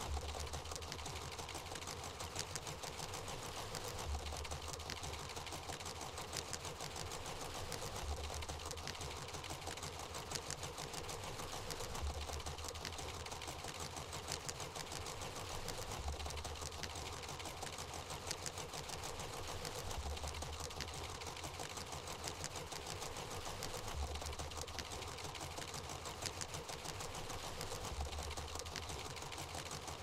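Older mechanical (non-computerized) sewing machine running steadily while stitching fabric, with a fast, even ticking.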